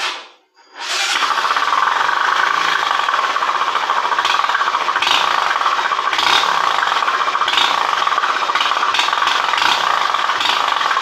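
Small motorcycle engine started with a brief first burst, then catching about a second in and running steadily, with a crushed aluminium beer-can piece tied to the bike buzzing and rattling loudly against it.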